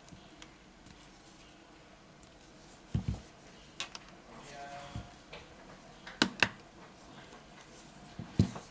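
Clicks and taps from a Xiaomi Mi A2 smartphone being handled as its freshly glued display is squeezed into the frame by hand: a dull knock about three seconds in, then sharp single clicks, two in quick succession past the middle and one near the end.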